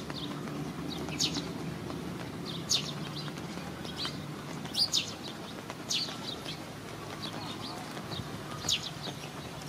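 Birds chirping: short, sharp high calls that drop quickly in pitch, coming irregularly about once a second over a steady low background noise.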